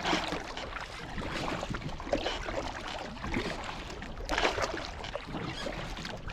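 Kayak paddle strokes, the blades dipping and splashing in the water at an uneven pace, with the loudest splash a little past the middle.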